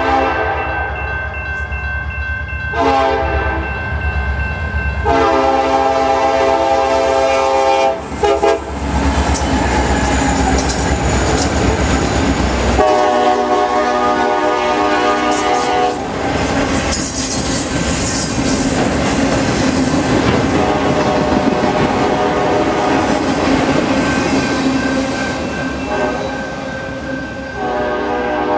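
Diesel freight locomotive sounding its horn in a series of long, several-note blasts over the deep rumble of its engine as it comes by. From about eight seconds in, the steady rolling noise of the passing autorack cars takes over, and the horn keeps sounding in long blasts.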